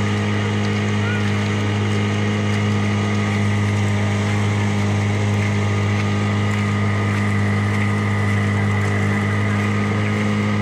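Engine of a small motorized outrigger boat running steadily at cruising speed: an even, unchanging hum, with water washing past the hull and outrigger.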